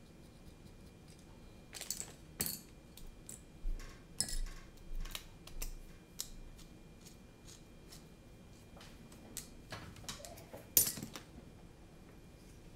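Irregular small clicks and clacks of carbon-fibre drone frame parts and small screws and standoffs being handled and fitted together. The loudest clack comes a little before the end.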